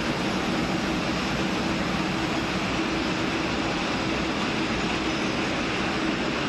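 Rubber hose production line machinery running steadily: an even whir with a low, constant hum underneath.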